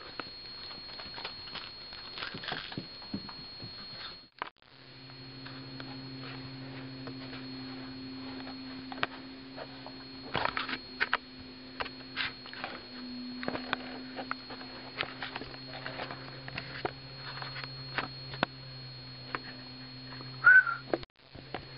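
A steady electrical hum under scattered light taps and clicks, with a brief dropout about four seconds in and one short high squeak near the end.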